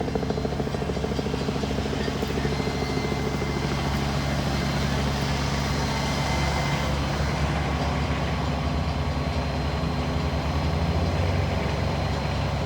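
Heavy engine running steadily, a low drone with a fine, rapid pulse that holds even throughout.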